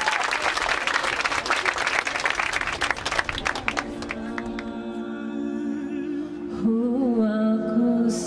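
A crowd clapping, fading out three to four seconds in. Music then comes in as steady held tones, and a wordless singing voice joins over them a couple of seconds before the end.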